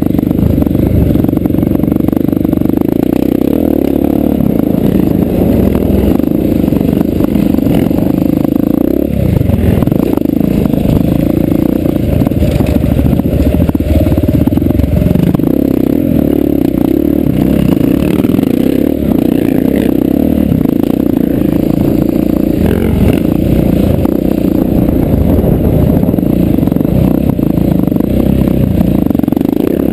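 KTM 690's single-cylinder four-stroke engine under hard riding on a dirt track, heard close up from the bike, its revs easing and picking up again several times.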